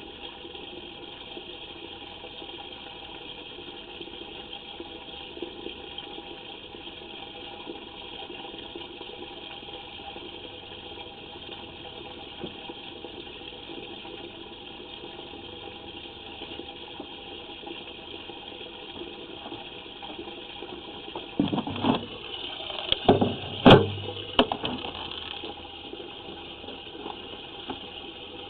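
Steady wash of water running through a sanitary sewer line, run through the system to test for pooling and leaks. A cluster of loud knocks and clunks comes about 22 to 25 seconds in.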